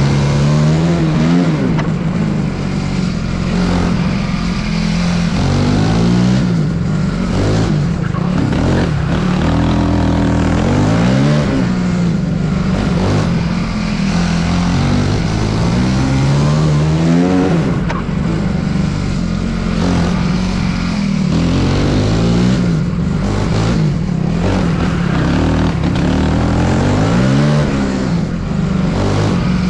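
Racing kart's engine heard from on board, revving up and dropping back over and over as the driver accelerates and lifts through a cone slalom; the pitch rises and falls about every two to three seconds.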